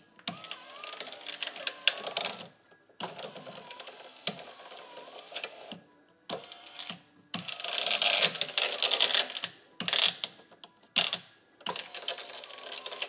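Land Rover Freelander electric window regulator, held outside the door, running on its motor in several stop-start runs with a wavering whine and a grinding, rattling cable drive that gets harshest about two-thirds of the way through. The grinding is the sign of a defective second-hand replacement regulator with a rusty cable and a guide broken off at the top.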